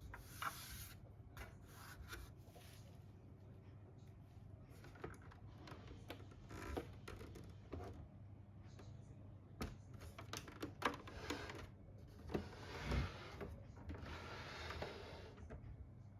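Scattered light clicks, knocks and brushing noises of objects being handled, with a couple of louder knocks near the end.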